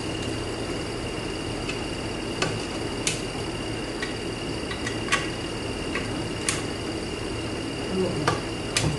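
Scattered, irregular sharp metallic clicks and light taps of hand tools against transmission parts, over a steady faint high-pitched whine.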